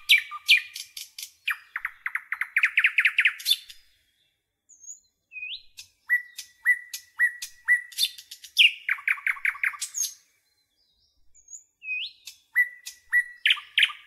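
A songbird singing the same song about three times with short pauses between. Each song is a few sharp high notes and a rising whistle, then a fast, even trill.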